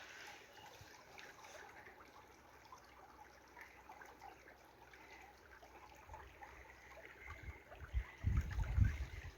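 Faint creek water trickling and gurgling. Near the end a louder low rumbling noise comes in.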